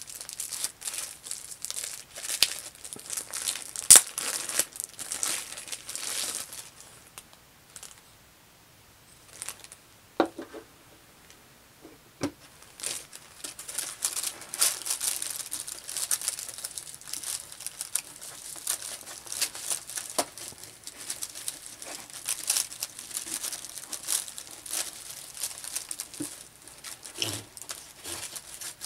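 Clear plastic wrapping crinkling and tearing as it is pulled off an acrylic doll-stand base. A quiet pause in the middle holds a couple of light knocks, then more crinkling of plastic and wrapping being handled in a cardboard box.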